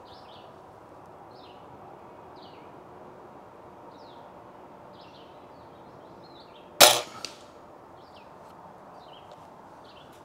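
Daisy Powerline 1101S break-barrel air rifle firing a single shot about two-thirds of the way in: one sharp crack, with a much fainter knock a moment after. Faint bird chirps come and go.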